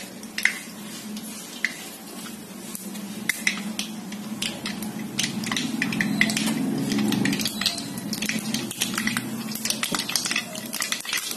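Mustard seeds popping and crackling in hot oil in a pan over a light sizzle, the spluttering of a tempering (tadka). The pops come irregularly and grow thicker after about five seconds, while a low hum swells and fades in the middle.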